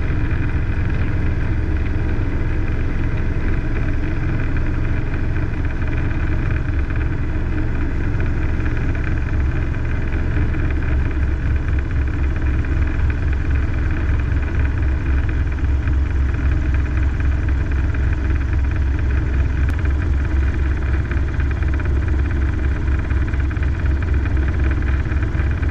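Robinson R22 helicopter's engine and main rotor heard from inside the cockpit during takeoff and climb-out: a steady drone with the rotor's rapid low beat, which grows stronger about halfway through.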